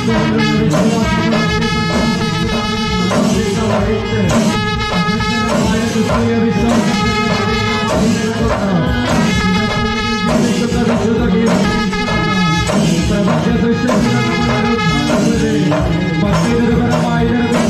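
Procession brass band playing a melody with drums, loud and continuous.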